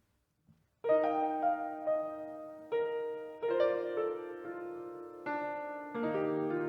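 Piano introduction: soft chords and single notes struck about once a second, each left to ring and fade, starting about a second in.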